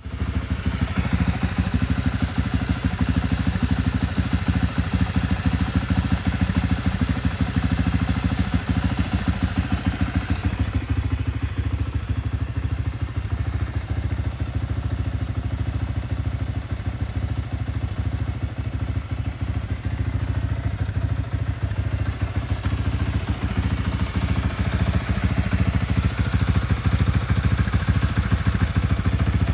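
Stock Kawasaki ZX 130 motorcycle engine, a single-cylinder four-stroke, idling steadily with a fast, even exhaust beat.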